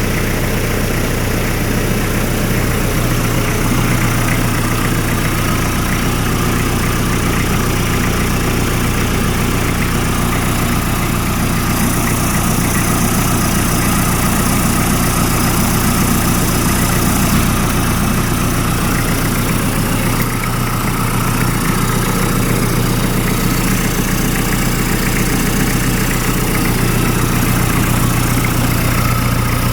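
Hyundai D4BH 2.5-litre four-cylinder turbodiesel idling steadily while its oil pressure is checked, with an even, unchanging hum throughout.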